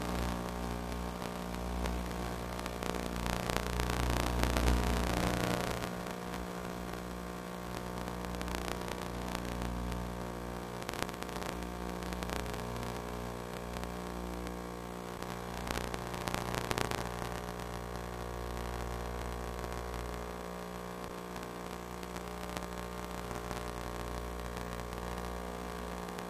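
Steady electrical hum with static and scattered crackles. It is noisier and louder in the first six seconds, then settles to an even hum.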